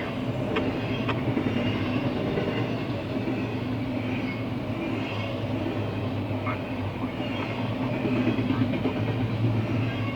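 Train rolling past: a steady rumble of railcar wheels on the rails, with a few short sharp ticks.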